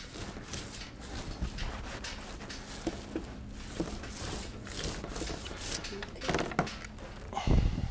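Handling noise of glue-soaked cotton cloth being pressed and rubbed smooth against a painted ceiling, with scattered small rustles and knocks and a louder thump near the end.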